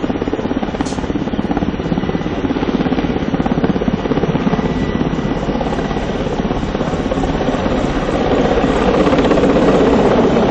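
Firefighting helicopter flying low overhead, its rotor beating in a fast, even chop that gets louder over the last couple of seconds.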